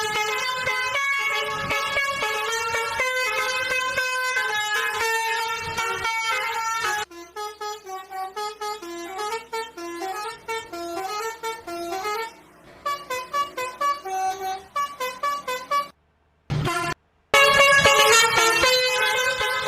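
Bus 'basuri' telolet horn playing a melody of stepped, pitched notes. The notes are loud at first, turn quieter and shorter in the middle, cut out briefly near the end, then come back loud.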